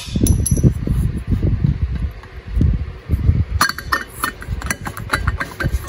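Metal air cleaner cover and filter element being pulled off a Kohler Command V-twin's air cleaner housing: dull handling bumps and rubbing, then a quick run of light metallic clinks about three and a half seconds in.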